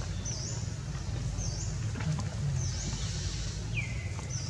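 A bird's short, high call that dips and rises again, repeating about once a second, with one lower, falling squeak near the end, over a steady low rumble.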